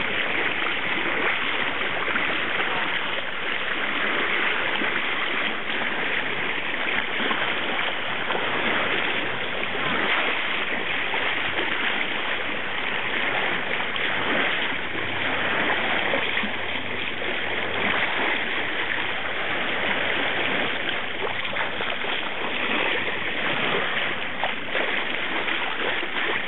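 Steady rush and splash of water along the hull of a moving boat.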